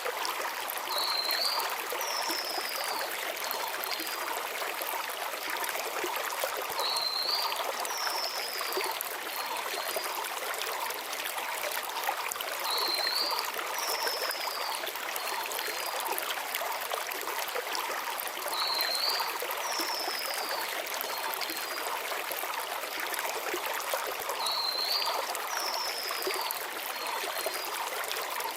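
Mountain stream flowing over stones, a steady rushing wash of water. A small forest bird repeats the same short phrase, a brief note then a falling whistle, about every six seconds, five times.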